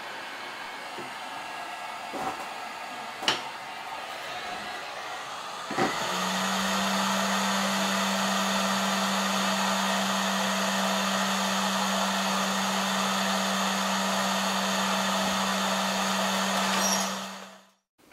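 Hot air rework station blowing a steady hiss of air over a graphics card's GDDR5 memory chip. About six seconds in the airflow gets louder with a steady low hum added, then the sound cuts off abruptly near the end.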